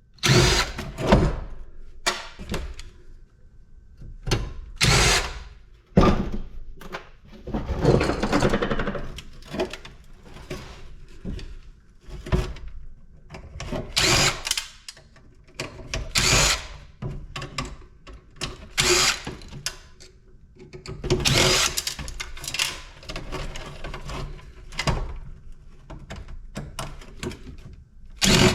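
Irregular clanks, rattles and short noisy bursts from the parts of a stripped-down PTAC air-conditioner unit and tools being handled and sorted, with quieter gaps between.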